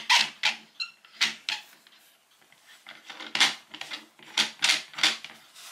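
A run of sharp clicks and knocks as a clock mainspring barrel is handled and fitted into a homemade plywood mainspring winder, with a short pause partway through.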